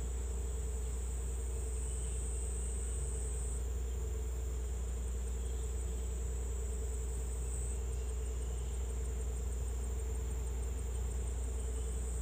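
Steady high-pitched chorus of insects, with a fast pulsing trill joining in about five seconds in, over a low steady rumble.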